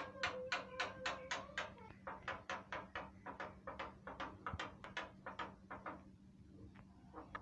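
Javan myna calling a rapid string of sharp, repeated notes, about three to four a second, thinning out and fading near the end: the loud, lively 'gacor' calling that prompts other mynas to answer.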